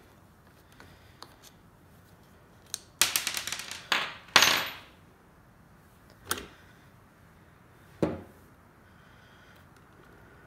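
Small wrench and plastic wheel being worked off an RC buggy's front hub: scattered light clicks, a quick rattling run of clicks about three seconds in, then two louder scraping clatters, then two single knocks later on.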